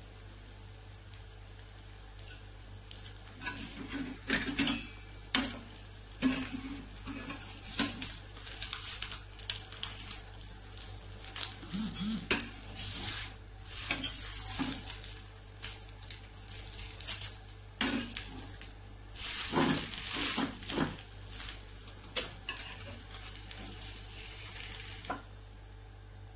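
Egg-coated bread frying in margarine in a non-stick pan, sizzling, while a metal spatula scrapes and knocks against the pan as the bread is folded, turned and lifted out.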